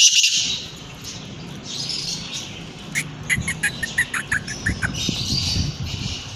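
Caged birds calling: a harsh call at the very start, a run of about a dozen quick high chirps from about three to five seconds in, and more harsh calling near the end.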